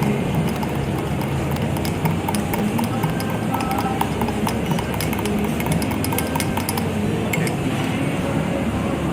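Quick run of light clicks and clinks, a spoon stirring a drink in a cup, trying to mix it in, over the steady hubbub of a busy food court.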